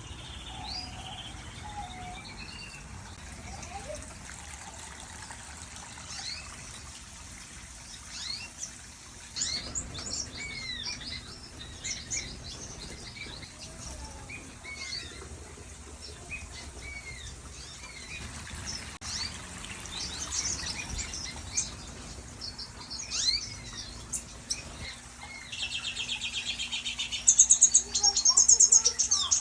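Many small aviary birds chirping and calling in short, overlapping notes. Near the end a rapid, even trill starts and becomes the loudest sound.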